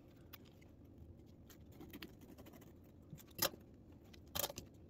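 Scissors cutting mesh screen: faint snips and rustles, with two louder cuts near the end.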